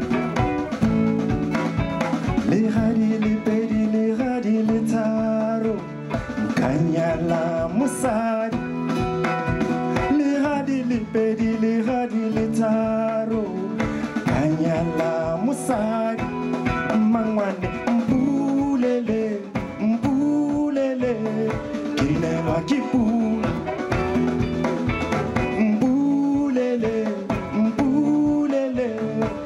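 Live band music: guitar and drums with singing, the voice rising and falling in arching phrases over a steady beat.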